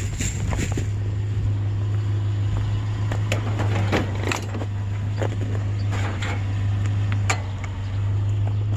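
A steady low hum like an idling vehicle engine, with scattered short knocks and clicks on top.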